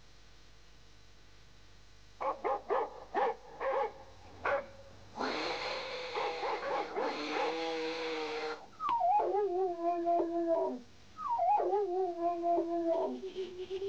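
Cartoon animal sound effects: a few short yaps, then a cat's angry hissing snarl lasting about three seconds, then a dog whining twice, each whine starting high, dropping and holding with a waver.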